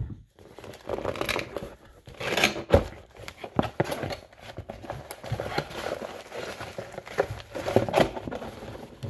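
Cardboard box and packaging of a fishing reel being handled and opened: irregular rustling and crinkling with scattered clicks and knocks.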